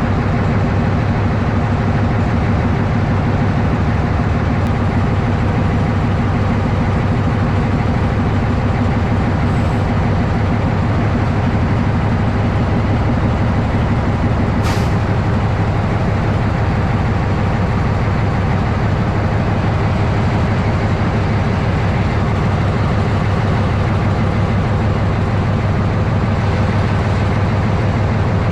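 Diesel engine of a narrow-gauge locomotive running steadily with a deep, even hum, and a single sharp click about halfway through.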